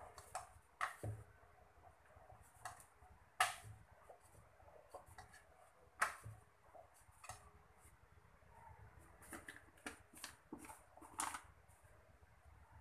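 Wooden rolling pin knocking and clicking against a metal plate as chapati dough is rolled out: about a dozen sharp, irregular taps, the loudest about three and a half and six seconds in.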